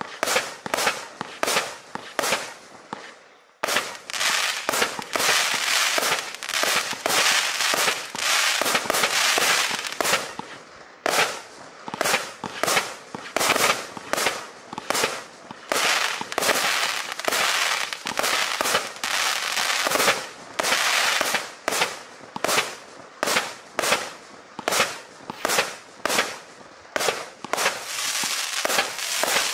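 Klasek Fireworks Show 200, a 200-shot 25 mm firework cake, firing in rapid succession: a string of sharp bangs, mostly two to three a second, that in places run together into a continuous rush. There is a brief lull about three seconds in.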